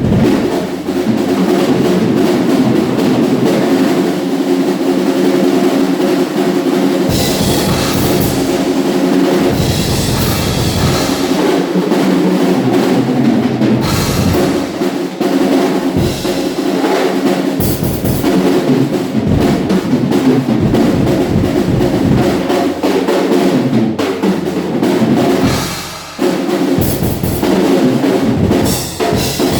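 Acoustic drum kit played continuously, bass drum and snare driving a busy groove with fills, with a brief let-up near the end.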